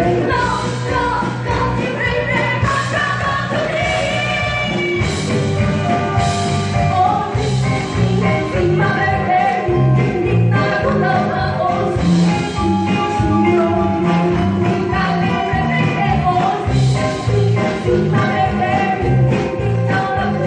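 A live band playing with a female vocalist singing the melody over a steady beat.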